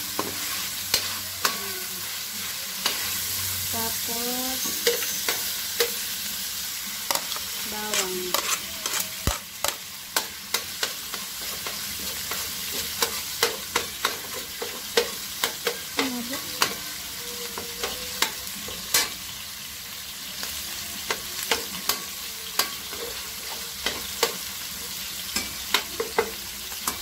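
Parboiled chicken pieces and minced garlic sizzling in oil in a stainless steel wok, with a metal spatula repeatedly scraping and clicking against the pan as they are stirred.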